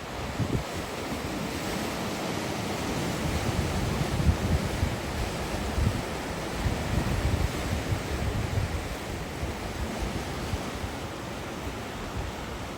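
Sea waves washing against the shore, swelling louder in the middle and easing off towards the end, with gusts of wind rumbling on the microphone.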